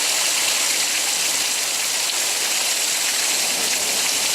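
Rain pouring down steadily, a loud, even hiss.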